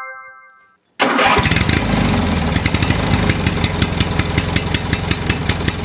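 A bell-like chime rings out and fades over the first second. Then an engine sound starts abruptly and runs steadily with a fast rattling pulse.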